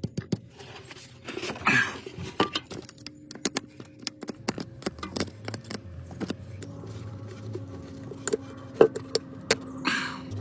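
Repeated light metallic clicks and clinks of tools and parts being handled, over a faint steady hum.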